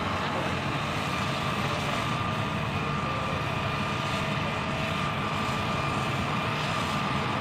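Hitachi 310 excavator's diesel engine working steadily as the machine swings and lowers its bucket into the rock pile, with a thin steady high whine over the engine drone.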